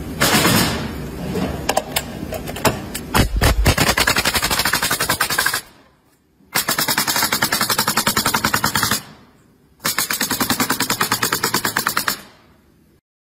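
Bostitch pneumatic coil nailer driving nails into pine boards in three rapid runs of several shots a second, separated by brief pauses.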